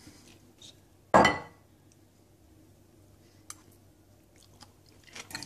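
One sharp clatter of a metal utensil knocking against dishware about a second in, then a single light click a couple of seconds later.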